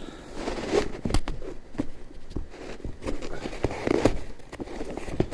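Crackling, rustling handling noise with scattered clicks and knocks as a pair of sneakers is handled close to the microphone.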